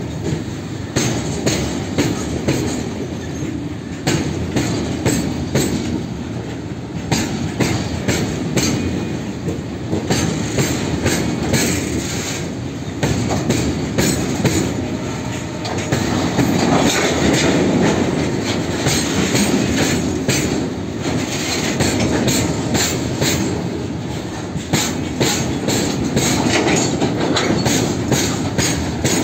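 Railway oil tank wagons of a long freight train rolling past close by: a steady rumble, with the wheels clicking over rail joints in rapid clusters.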